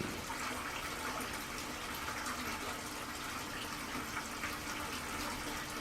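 Steady rush of running water with a faint, even low hum underneath.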